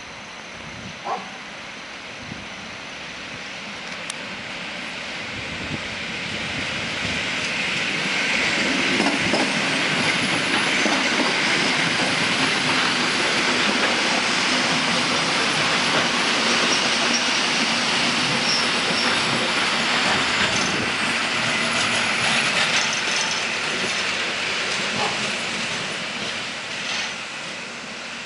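Electric passenger train passing close by: wheel and rail noise builds over several seconds, runs loud and steady with clickety-clack over the rail joints, then fades near the end.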